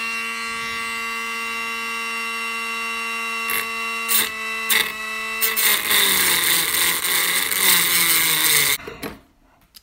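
Cordless rotary tool with a thin cutoff wheel whining steadily at high speed, with a few brief ticks as the wheel touches the work. From about six seconds in, the wheel grinds through a steel rivet: the pitch sags under the load and a harsh grinding hiss rises. The tool stops abruptly near the end.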